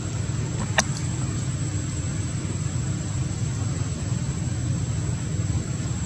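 Steady low outdoor rumble with a thin, steady high-pitched whine over it, and one sharp click about a second in.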